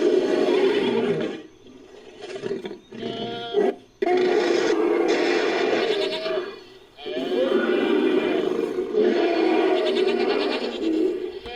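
Designed creature call built from layered goat and sheep bleats: a few long, wavering bleating calls with short gaps between them.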